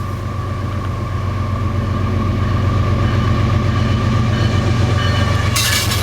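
A train passing close by: a heavy rumble growing louder, with a steady ringing tone over it, and a sharper rattling clatter breaking in about five and a half seconds in.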